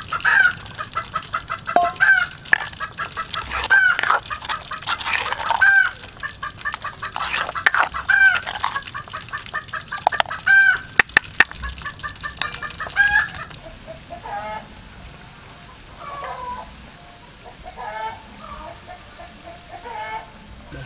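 Farmyard poultry calling over and over, with chicken clucks and goose-like honks, loud and close in the first half and fainter later. From about halfway through, a steady sizzle of oil frying runs underneath.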